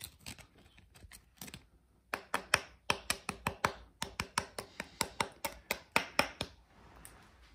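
A steel pick chipping and scraping at hard scale clogging the seawater cooling passage of a Volvo Penta MD2030D's reverse gearbox. It makes a few scattered clicks, then from about two seconds in a quick run of sharp clicks, about four or five a second, that stops near the end.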